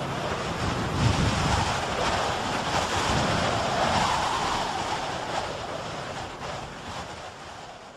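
Steady rushing wind noise, fading out over the last few seconds.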